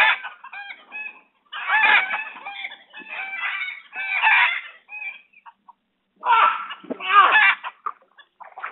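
Domestic fowl calling over and over: a string of harsh clucking and crowing calls, each lasting up to about a second, with a short pause a little past the middle.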